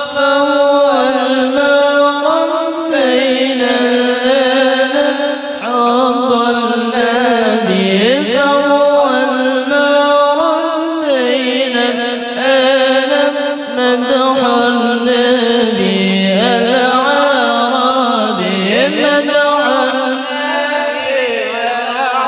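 Sung Arabic devotional chanting through a PA sound system during a sound check: a voice draws out long, ornamented notes that slide up and down, with no break.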